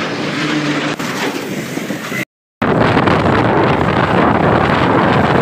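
Motorcycle ride on a Bajaj Pulsar 220: engine running in heavy truck traffic, then a brief silent gap about two seconds in, followed by loud, steady wind rushing over the microphone at road speed.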